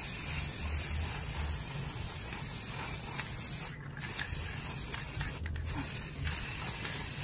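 Aerosol can of silver metallic spray paint hissing steadily as it sprays, broken twice by short pauses, about four and five and a half seconds in.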